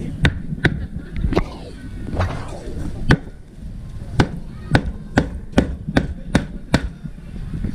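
Knife chopping roast meat on a cutting board: a few scattered strikes, then a steady run of chops at about two and a half a second through the second half.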